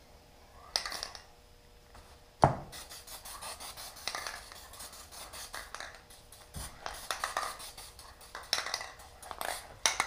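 Aerosol can of CMT saw-blade cleaner spraying onto a saw blade in rapid spitting spurts rather than a smooth hiss, the can nearly empty. There is one sharp knock about two and a half seconds in.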